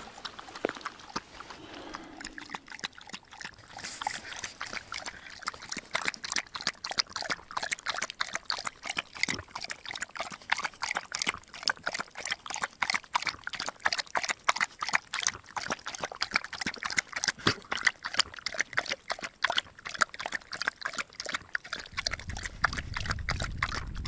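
A dog eating wet oat porridge from a bowl, champing and lapping noisily in a rapid run of wet smacks, several a second.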